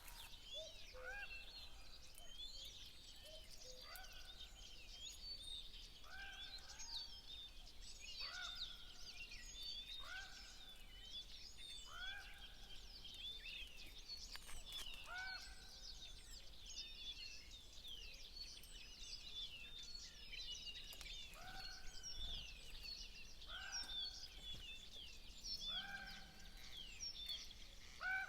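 A chorus of many small birds chirping and twittering. A lower, repeated call sounds about every two seconds and pauses for a few seconds past the middle.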